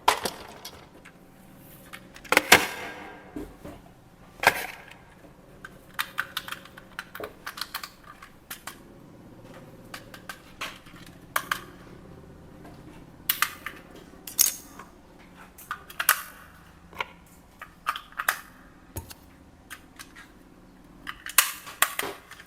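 Irregular clicks, taps and light rustles of hands handling a plastic toy vehicle and its packaging, with a few louder knocks.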